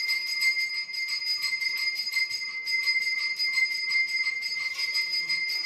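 A bell rung rapidly and without pause, several strokes a second over a steady, clear ringing tone.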